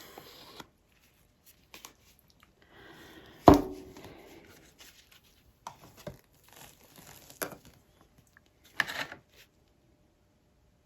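Handling sounds: one sharp knock about three and a half seconds in, with scattered lighter clicks and rustles, as cups and paint supplies are handled during paint mixing.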